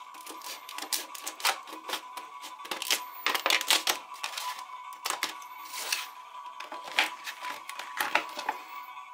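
Scissors snipping through the stiff plastic of a blister pack, the plastic crackling and clicking in irregular sharp snaps, busiest about three to four seconds in.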